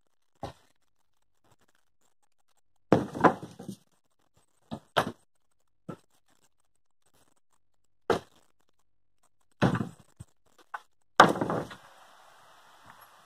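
Wooden 2x4 boards clattering as they are tossed onto a lumber pile: a series of separate knocks and clunks, with a cluster about three seconds in and the loudest about eleven seconds in.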